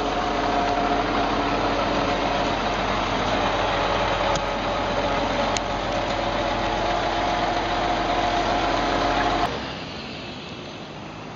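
Steady engine and road noise inside a moving vehicle, with a constant drone. It cuts off suddenly about nine and a half seconds in, giving way to quieter outdoor traffic noise.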